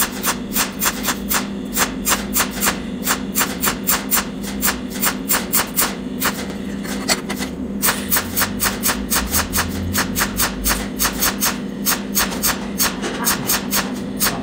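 Cold welding machine's pulsed arc snapping at about three to four sharp pulses a second over a steady low hum, as filler wire is fed into the weld on a nut.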